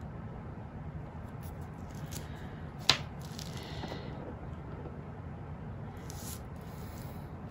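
Small handling noises: a sharp click about three seconds in, then soft scraping and rustling, over a steady low hum.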